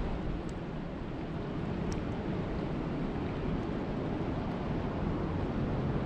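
Steady rain falling on a lake, an even hiss with a few sharper drop ticks here and there.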